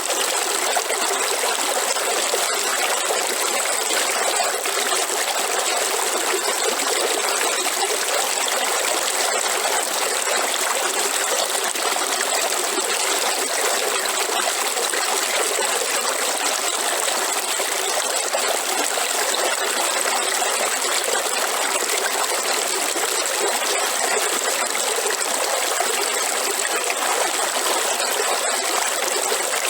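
River water flowing and trickling steadily, with a thin, steady high tone running over it.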